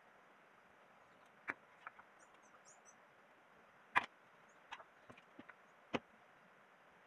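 Short knocks and clicks of a wooden log and a folding ruler being set down and handled on a wooden table-saw top. About eight knocks in all, the loudest about four seconds in, with a cluster of lighter clicks shortly after. Faint bird chirps sound in the background.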